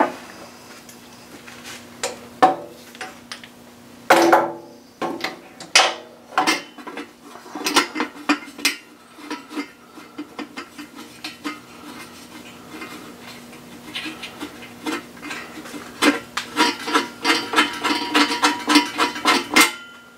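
Hand ratchet clicking and metal tools clinking as the oil pump and pickup bolts are run down and tightened, with a dense quick run of ratchet clicks in the last few seconds. A faint steady hum lies underneath.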